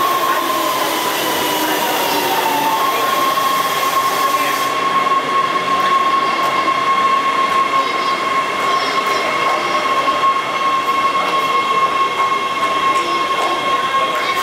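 LA Metro heavy-rail subway train of Breda A650 stainless-steel cars running along an underground station platform: a steady rumble with a high whine that sags a little in pitch over the first couple of seconds, then holds steady.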